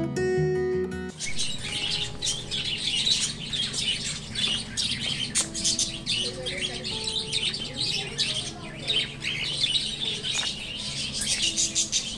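Acoustic guitar music that cuts off about a second in. After it, a flock of caged budgerigars chatters and chirps in quick, overlapping high calls.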